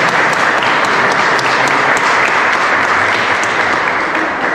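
Audience applauding, a steady dense clatter of many hands clapping that dies down near the end.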